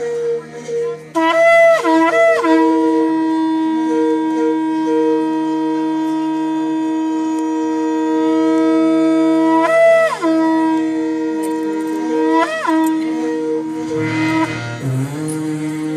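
Conch shell blown in long held blasts on one steady note, the pitch briefly dipping and swooping back a few times.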